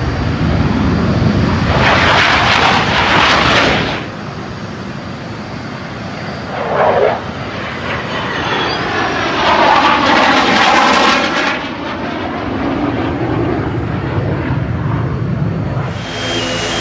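Aircraft flying past at an airshow, its engine noise swelling loud twice, with a sweeping, phasing sound on the second pass. Near the end the sound changes abruptly.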